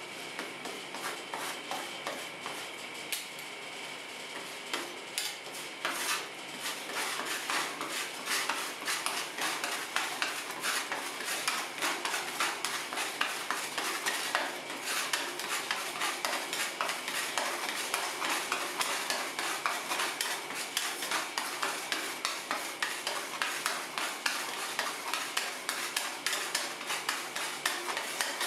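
Two metal spatulas scraping and tapping rapidly on a stainless steel ice-cream cold plate, working a thin layer of freezing pineapple ice cream base. The strokes come quicker and louder after about six seconds.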